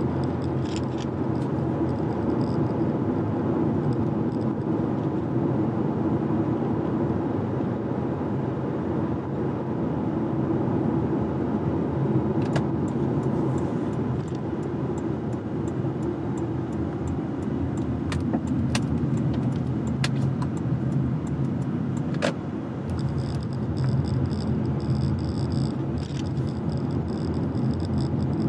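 Car driving along: steady tyre and road noise with engine hum and no change in pace. A few brief ticks come in the middle.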